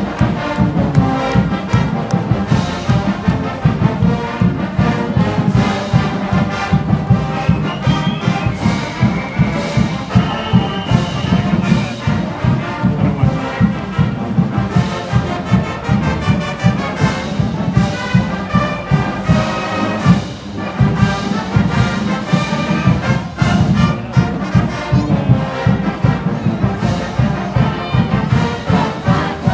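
College marching band playing live: massed brass with sousaphones over a steady pounding drum beat.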